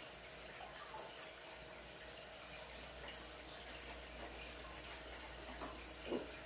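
Faint gulping and sloshing as a man drinks water from a plastic gallon jug, with a brief louder sound about six seconds in.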